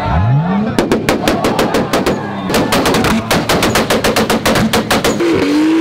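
Nissan Skyline R32 GT-R's twin-turbo straight-six revving up and holding on a two-step launch limiter, firing a rapid, uneven string of loud exhaust pops and bangs for about four seconds.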